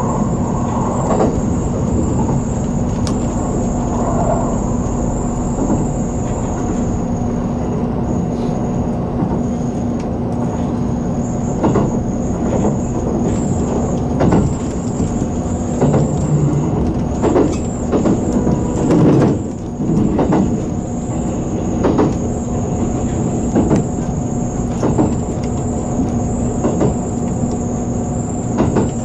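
JR Kyushu 783 series electric train running at speed, heard from inside: a steady rumble with a constant low hum and a thin high whine. From about eleven seconds in, short sharp knocks from the wheels on the track come at irregular intervals.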